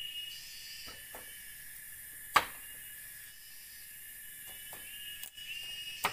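Machete chopping small pieces of wood on a bamboo platform: scattered sharp knocks, one much louder about two and a half seconds in. A steady high insect drone runs underneath.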